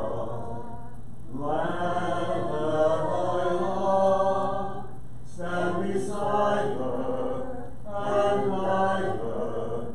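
Unaccompanied chant sung by low voices, in sustained phrases a few seconds long with short pauses between them.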